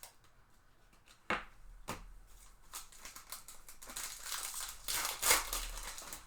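Foil trading-card pack wrapper being handled and torn open: two sharp crackles, then about four seconds in a longer stretch of crinkling and tearing that is loudest just before the end.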